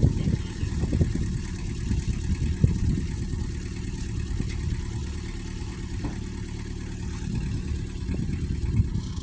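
Engine running steadily, with frequent short knocks and rattles over it.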